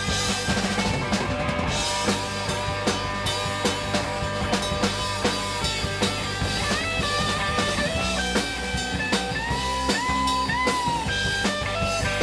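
Live rock band playing an instrumental passage: electric guitar lead lines with bending notes over bass guitar and a drum kit keeping a steady beat.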